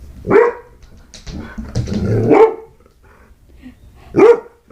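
Golden retriever barking and vocalising: a short bark, then a longer drawn-out grumbling run of woofs, then another short bark near the end.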